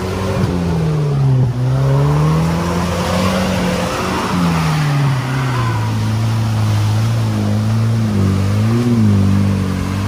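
Off-road vehicle engine revving, its pitch falling, rising and falling again, then running steadier at lower revs with a brief blip near the end.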